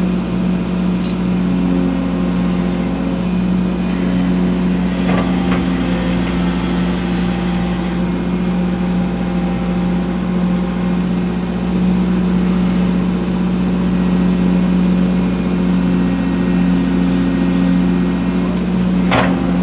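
Excavator's diesel engine running steadily with a constant low hum. There is a sharp knock about five seconds in and another near the end.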